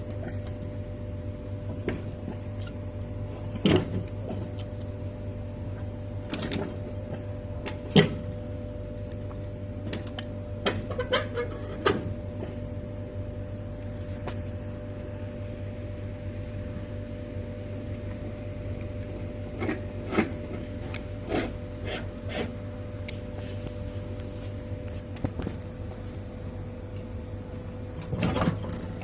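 A steady low electrical hum with scattered clicks and knocks of things being handled.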